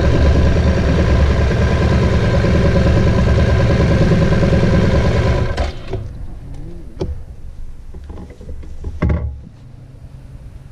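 BMW R1200GS boxer-twin engine running at low speed, then cutting off suddenly about halfway through. What follows is much quieter, with scattered knocks and clicks.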